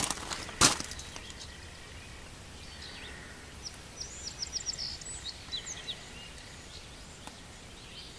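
Outdoor background of birds chirping over a faint steady low rumble, with a quick run of chirps about four to five seconds in. Two sharp knocks come within the first second.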